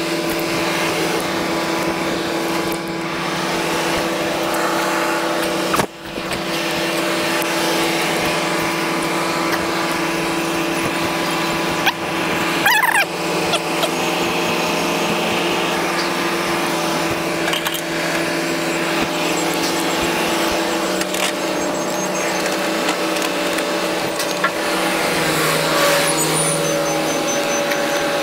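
A steady engine running, a constant hum made of several held tones. There is a brief dip about six seconds in, and a short squeal that slides in pitch about thirteen seconds in.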